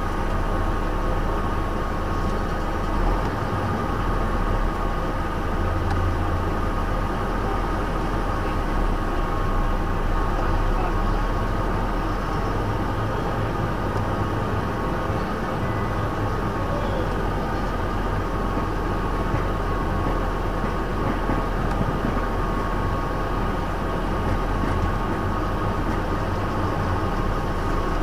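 Scammell S26 heavy haulage tractor's diesel engine heard from inside the cab, running steadily as the truck moves slowly along, with a steady high whine over the deep engine note.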